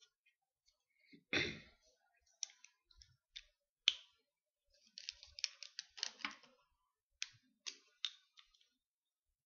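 Pens being handled and swapped: a short knock, then scattered sharp plastic clicks of pen caps and barrels, with a quick run of clicks in the middle and three more near the end.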